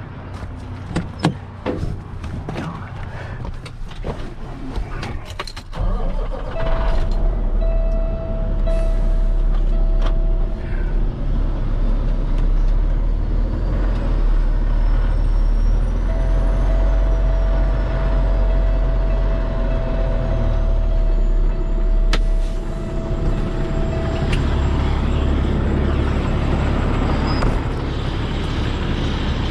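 Heavy tow truck's diesel engine running hard under load, trying to drive the truck out of soft gravel where it is stuck. A steady whine rises over the rumble for a few seconds and again for several seconds in the middle. Scattered clicks and crunches come before the engine picks up, about six seconds in.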